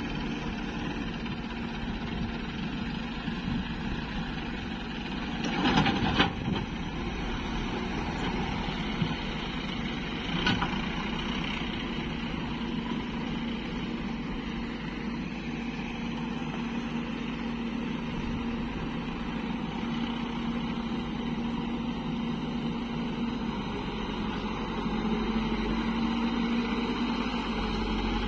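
Diesel engines of farm tractors and an excavator running steadily with a low hum. There is a brief louder surge about six seconds in and a short knock about ten seconds in.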